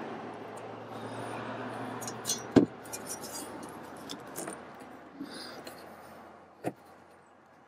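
Hands pressing rubber grommets into the holes of a metal engine-guard plate: a few sharp clicks and knocks, the loudest about two and a half seconds in. A low rushing background noise fades away underneath.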